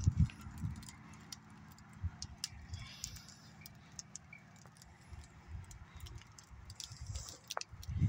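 Low rumble and irregular bumps on a hand-held camera's microphone as it is moved about, heaviest at the start, with scattered faint ticks.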